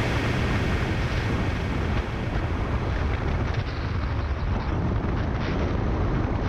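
Triumph Tiger 900 Rally Pro's three-cylinder engine running at a steady low road speed, about 30, with a steady deep rumble of wind buffeting the microphone.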